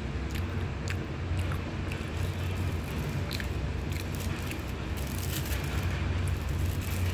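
Thin plastic bag crinkling and flaky puff pastry crackling as a hand breaks the pastry apart, with the crackles thickest in the second half. A steady low hum runs underneath.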